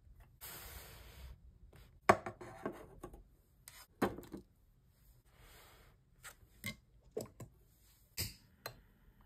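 Objects being set down and arranged on a desk: a series of knocks and clacks, the loudest about two and four seconds in, with brief stretches of sliding and shuffling noise between them.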